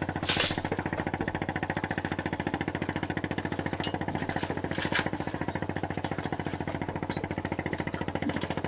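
A boat's engine running steadily at idle, a rapid, even chugging.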